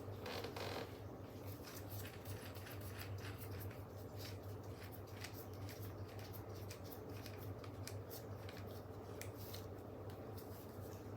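Small metallic clicks and rattles from handling a bicycle chain and a Pedro's Tutto chain tool, with a short scrape about a second in, over a steady low hum.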